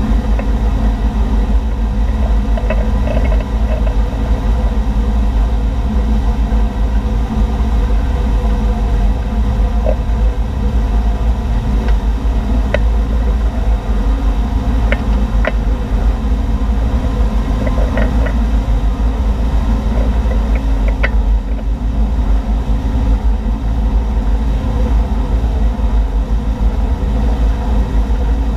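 Motorboat engine running steadily at speed while towing a water skier.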